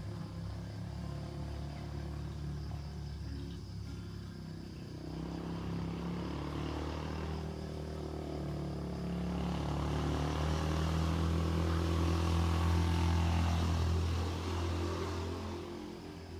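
A motor vehicle's engine passing by: a low engine sound with rushing noise that builds, is loudest about three quarters of the way through, then fades.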